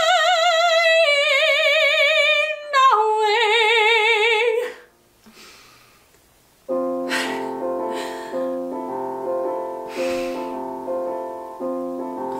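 A woman's voice sings a long held note with wide vibrato, stepping down in pitch twice before stopping about halfway through. After a brief hush, a piano plays repeated chords.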